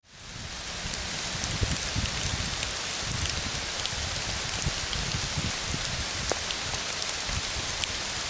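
Steady rain falling on trees and leaf litter, with scattered drops ticking and a few low thumps; it fades in from silence at the start.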